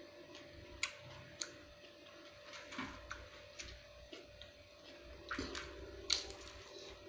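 Eating at close range: chewing and mouth sounds with a handful of sharp clicks and taps, over a faint steady hum.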